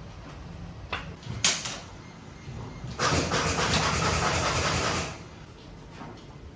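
Two short knocks, then a power tool runs loud and steady for about two seconds and cuts off.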